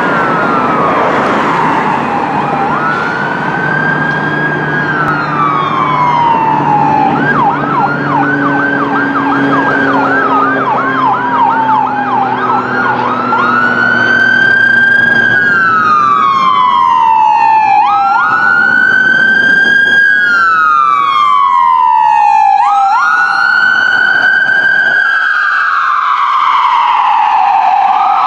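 Ambulance's electronic siren on wail, each cycle a quick rise and a slower fall, repeating about every four and a half seconds. About seven seconds in it switches to a fast yelp for around five seconds, then goes back to wail and grows louder as the ambulance approaches.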